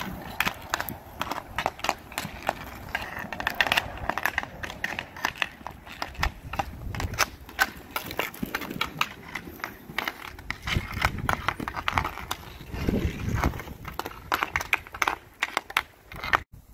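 Stick handling on asphalt: hockey stick blades clacking rapidly and irregularly against a puck, over the rolling rumble of inline skate wheels on the pavement. It cuts off suddenly near the end.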